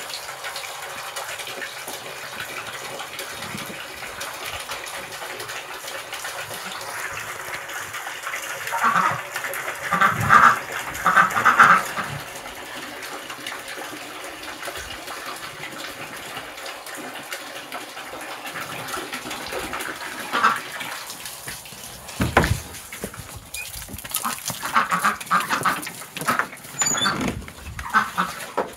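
Water from a garden hose splashing steadily into metal pans of duck water. Ducks quack in short bursts about nine to twelve seconds in and again over the last few seconds, with a single thump a little after twenty seconds.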